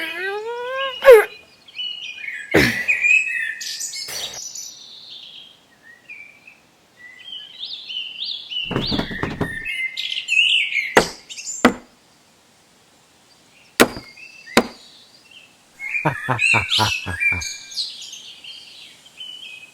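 High chirping and squeaking calls in short clusters, opening with one rising squeak, mixed with several sharp knocks and thumps.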